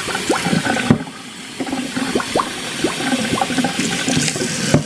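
Hot tap water running through a removed black plastic sink P-trap, gurgling and splashing out of its end into a stainless steel sink as it flushes out the built-up slime. Steady splashing with many quick rising bubbly gurgles.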